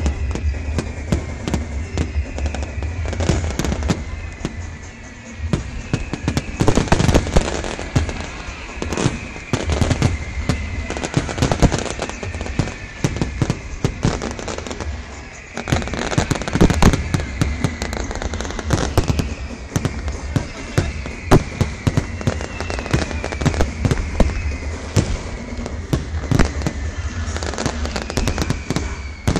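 Fireworks going off in quick succession: many sharp bangs and crackling, with whistles that fall in pitch again and again.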